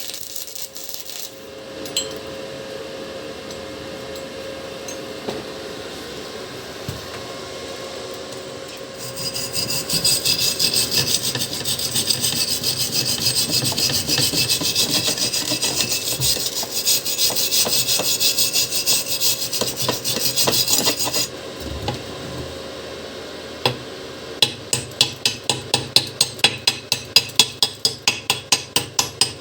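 Stick-welding arc of a ZX7-255 inverter welder, crackling steadily for about twelve seconds from roughly a third of the way in, then cutting off abruptly. After a short pause come rapid sharp metallic taps, about four a second.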